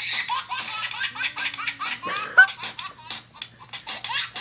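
A funny ringtone of high-pitched laughter playing on an iPhone: a rapid string of short laughs.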